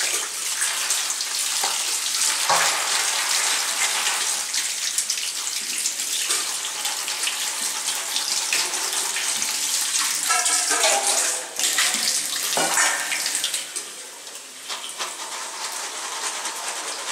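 Kitchen tap water running into an aluminium bowl as beans are rinsed and rubbed by hand, with small clicks of the beans against the metal. The water sound drops lower a little over three-quarters of the way through.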